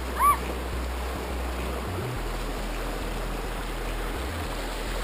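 River rapids rushing over rocks: a steady wash of running water. A single brief high call, rising then falling, cuts through about a quarter second in.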